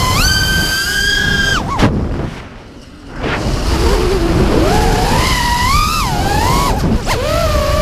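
Racing quadcopter's brushless motors (Lumenier 2206 2350kv on 5-inch props) whining, the pitch rising and falling with throttle, over wind rush on the onboard camera's microphone. About two seconds in the motors chop off sharply and the sound drops for about a second as the throttle is cut, then they spool back up and keep changing pitch.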